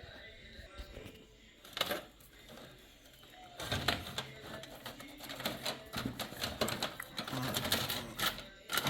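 Small hard clicks and rattles of computer hardware being handled and pulled apart, sparse at first with one sharp click, then quick and dense from about a third of the way in.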